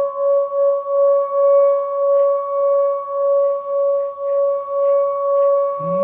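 Metal singing bowl rubbed around its rim with a wooden mallet, giving a sustained ringing tone with an overtone an octave above that wavers about three times a second. Near the end, a lower tone comes in beneath it.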